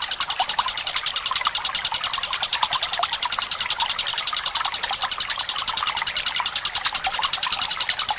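Tengkek buto bird calls in a long, fast, even rolling trill of about ten notes a second, over trickling, gurgling water.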